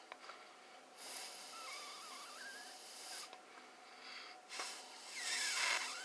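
Two long breaths blown by mouth into an engine vacuum hose, pushing cigar smoke through to find a vacuum leak at the intake manifold gaskets. Each blow is a hiss with a faint wavering whistle: the first starts about a second in and lasts about two seconds, the second comes near the end.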